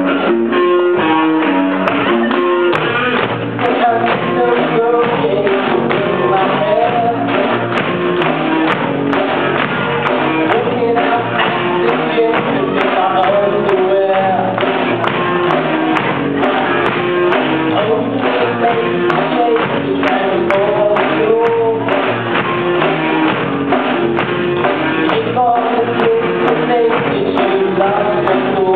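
Live rock band playing: electric guitars and a drum kit keeping a steady beat, with a lead singer's voice over them.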